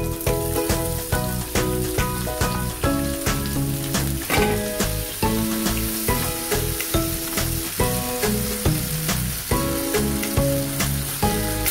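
Red and green pepper strips sizzling in hot oil in a non-stick frying pan, stirred with a wooden spoon. Background music with a stepping melody plays over it.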